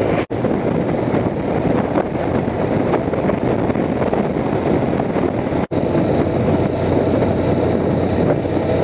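Honda Crosstourer motorcycle riding at road speed: a steady wind rush on the microphone over the low running of its V4 engine. The sound cuts out for an instant twice, just after the start and about halfway through.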